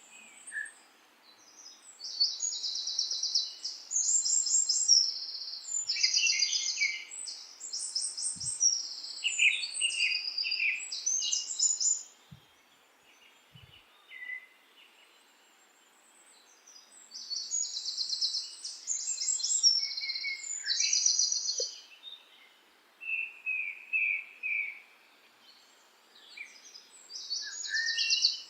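Songbirds singing high, rapid trilled phrases in long bouts with short pauses between them, over a faint steady background hiss.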